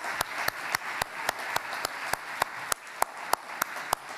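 Audience applause, with one person's steady claps close to the microphone, about four a second.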